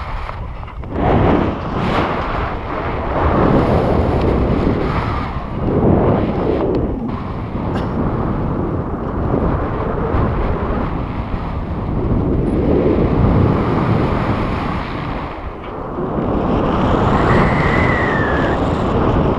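Wind rushing over the microphone of a pole-held action camera in flight under a tandem paraglider, loud and swelling and easing in gusts.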